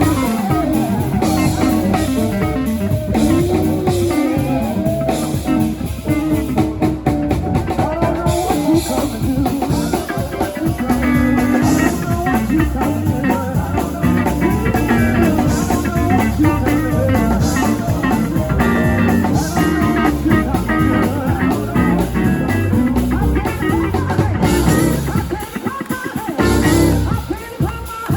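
Music with electric guitar and drum kit in a bluesy rock style, with a steady beat and a brief drop in level near the end.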